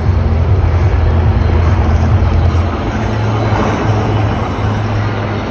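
HAL Dhruv helicopters of a formation display flying past, a steady low rotor and engine drone that eases slightly about three seconds in.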